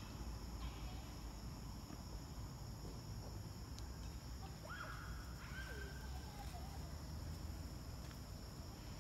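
Forest ambience: a steady high-pitched insect drone over a low rumble, with a few short chirping calls about halfway through.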